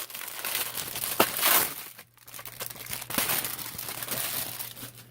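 Packaging crinkling and rustling in irregular bursts as it is handled and pulled open, with a sharp click about a second in and a short lull near the middle.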